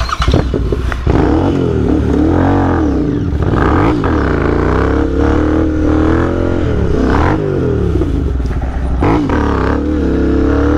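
Motorcycle engine revving hard. It comes in loud about a second in, and its revs climb and drop over and over.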